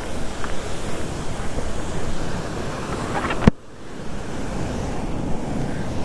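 Steady rushing roar of a waterfall mixed with wind buffeting the microphone. A sharp knock comes about three and a half seconds in, and the sound drops away briefly after it.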